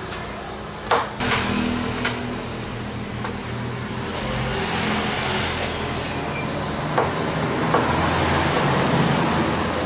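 Large kitchen knife chopping green tomatoes on a plastic cutting board: a few sharp chops against the board, two close together about a second in, another at two seconds, then two more near the end. A steady background noise runs underneath.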